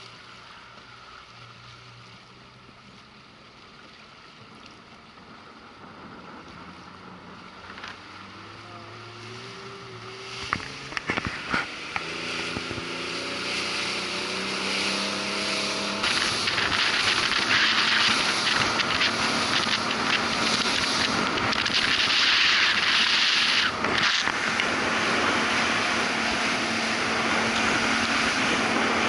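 Motorboat engine running quietly at low speed, then throttling up about ten seconds in, its pitch climbing in steps, with a few knocks. From about sixteen seconds, wind rushing over the microphone and spray hissing dominate as the boat runs at speed.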